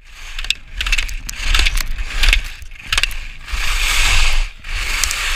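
Slalom skis carving turns on groomed snow: edges scraping through each turn, loudest from about three and a half to four and a half seconds in, with sharp knocks between turns and wind rumbling on the chest-mounted microphone.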